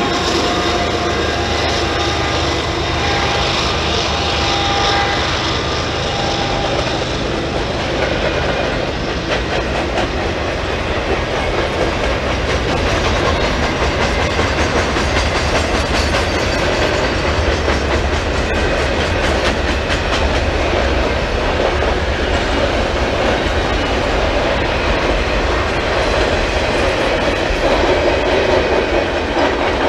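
Freight train passing at speed: the mid-train diesel locomotive's engine hum fades over the first several seconds. Double-stack intermodal well cars follow, with a steady loud rumble of steel wheels on rail and scattered clicks over the joints.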